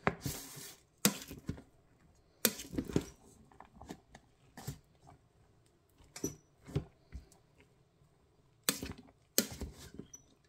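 A plastic rice paddle scooping and fluffing freshly cooked jasmine rice in a rice cooker's metal inner pot: irregular short scrapes and knocks against the pot, with quiet pauses between strokes.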